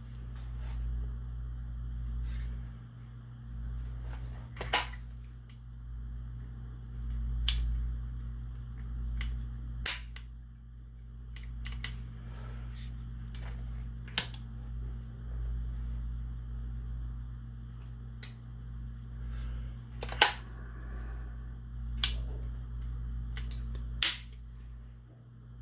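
A dozen or so sharp clicks, irregularly one to three seconds apart, over a steady low hum.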